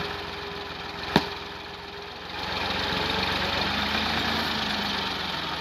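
Massey Ferguson 260 tractor's three-cylinder diesel engine running steadily, getting louder a little over two seconds in. About a second in there is one sharp knock as a digging hoe strikes the earth.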